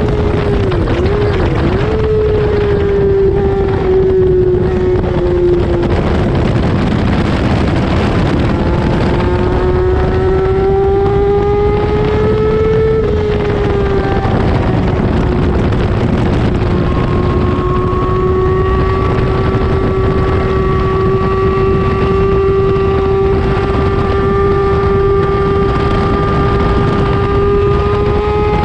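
Racing motorcycle engine at high revs, recorded on board with wind rushing over the microphone. The note wavers about a second in, sinks for several seconds, climbs again, drops sharply about halfway, then holds and slowly rises as the bike accelerates.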